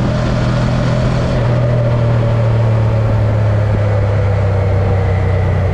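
Ducati Panigale 1299 R Final Edition's V-twin engine running at a steady cruise, its note holding at a constant pitch.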